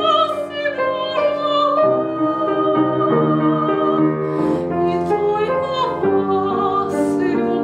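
A woman singing a Russian romance in a trained classical voice, with vibrato on the held notes, to piano accompaniment.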